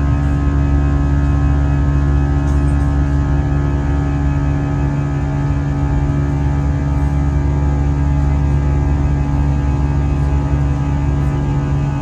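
Steady drone of an Airbus A320 heard from inside the cabin during the climb: jet engines and airflow, a deep rumble with steady hum tones over it.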